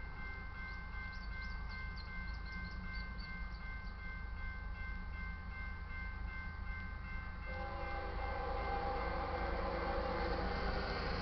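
Railroad crossing bell ringing steadily. About seven and a half seconds in, the horn of an approaching BNSF GE ES44C4 freight locomotive starts sounding, a chord of several notes that grows louder.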